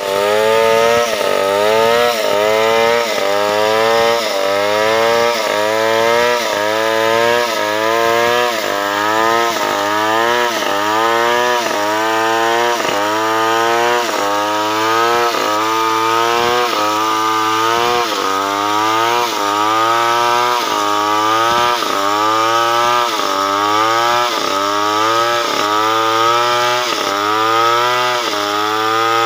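Powermate 070 two-stroke chainsaw running under load as it rip-cuts a log lengthwise into lumber. Its engine pitch rises and drops back in a steady repeating cycle, a little more than once a second.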